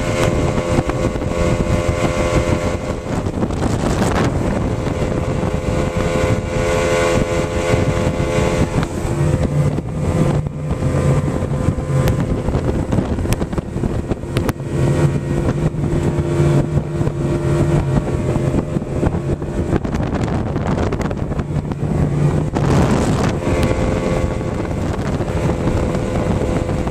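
Bay boat's outboard motor running at planing speed, mixed with the rush of the wake and wind on the microphone. The engine note shifts a few times as the throttle changes.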